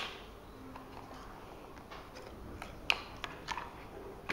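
Hard plastic parts of an action camera's waterproof housing and mounts being handled: one sharp click right at the start, then a few lighter clicks and taps about three seconds in and another near the end.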